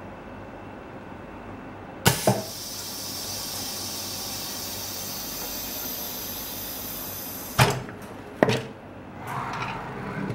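OCA vacuum laminator ending its cycle. A sharp click comes about two seconds in, then a loud steady hiss of air for about five seconds as the vacuum releases, then two sharp knocks.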